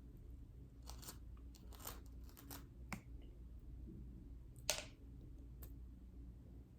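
Close-miked eating sounds: a handful of short crunches and mouth clicks while chewing, the sharpest about two-thirds of the way in, over a faint steady low hum.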